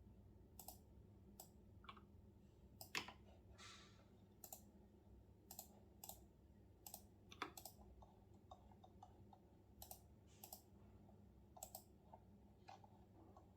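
Slow, irregular keystrokes on a computer keyboard, single clicks and short runs with pauses between, over faint room hum. The loudest keystrokes fall about three seconds in and past seven seconds.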